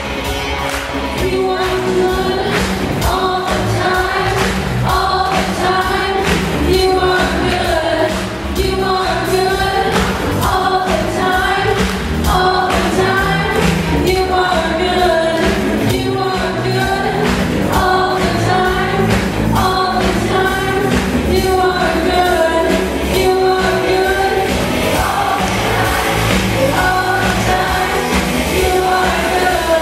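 Live band playing with drum kit, electric guitar and bass under sung vocals, at a steady, full volume, with the sung phrase repeating every couple of seconds.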